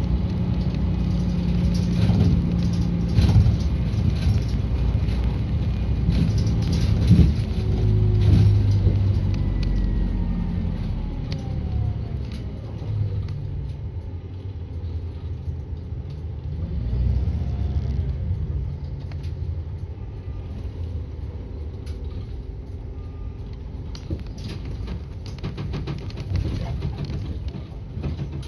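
Inside a moving bus: engine and road rumble with occasional rattles from the cabin, louder for the first twelve seconds or so and easing off after.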